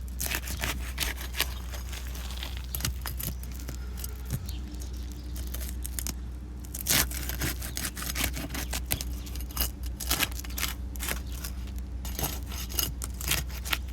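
A roof snake working under roof shingles, breaking their sealant bond: irregular scraping, tearing and clicking, loudest about seven seconds in, over a steady low hum.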